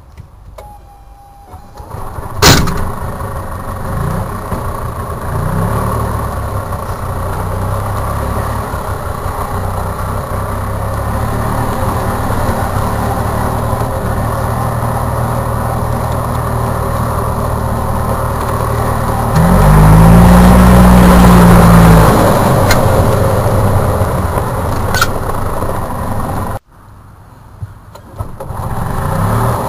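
A golf cart's two-stroke single-cylinder Robins engine catches with a sharp click about two seconds in and then runs steadily as the cart drives. Around twenty seconds in it revs up louder, its pitch rising and then falling. It cuts out suddenly near the end, then picks up again, rising.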